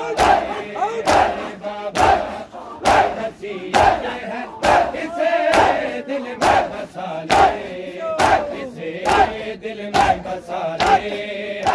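Mourners beating their chests (matam) in unison, sharp slaps a little under two a second, over a crowd of voices chanting the noha.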